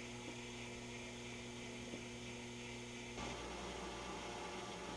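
Steady electrical mains hum with faint hiss. About three seconds in, the hum changes character abruptly and gets slightly louder.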